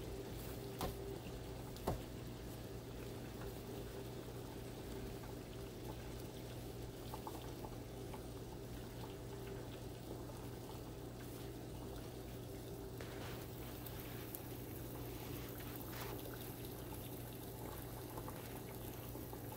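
Pot of water with baking soda boiling steadily, faint, with a low hum under it. A sharp knock about two seconds in and a few light taps from hands working dough on a wooden cutting board.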